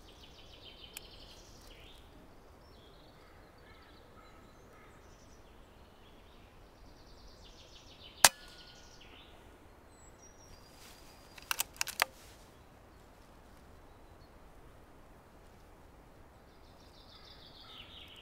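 Single muffled shot from a silenced .177 Air Arms Ultimate Sporter PCP air rifle about eight seconds in, a short sharp crack. A quick cluster of sharp clicks follows about three seconds later, with birds chirping faintly throughout.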